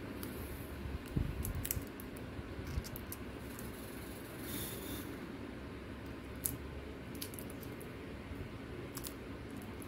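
Faint clicks and taps of a small plastic smartwatch being turned over in the fingers, with a few louder knocks about a second in, over a steady low room hum.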